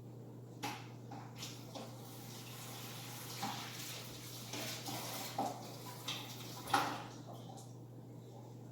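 A few scattered light knocks and clicks over a steady low electrical hum, the loudest knock near the end, with a faint hiss in the middle.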